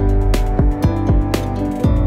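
Instrumental background music: plucked-string notes over a bass line with regular percussive hits.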